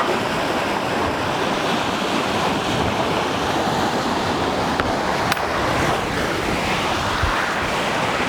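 Steady rush of wind and sea water around a sailboat under way offshore, with wind buffeting the microphone.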